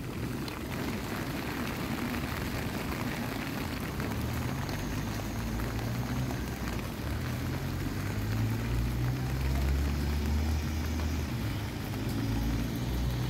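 Street ambience dominated by a nearby motor vehicle's engine: a low hum that comes in about four seconds in and grows louder toward the end, over a steady hiss of wet-street noise.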